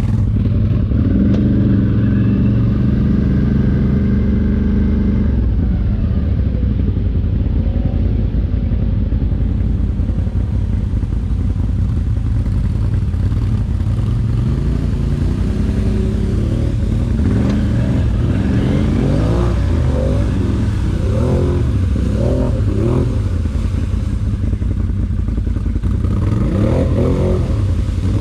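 ATV engine running while riding, its pitch rising and falling with the throttle, with frequent quick rises and drops in the last ten seconds.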